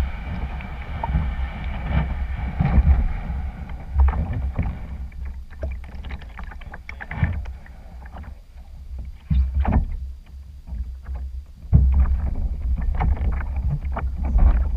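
Wind buffeting the microphone of a camera mounted on a canoe, with water slapping and short knocks against the hull as the canoe is pushed off the bank into the water.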